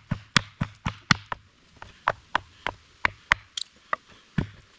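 Estwing camp hatchet chopping through an inch-and-a-half branch resting on a stump: quick, sharp chops in a steady run of about three a second.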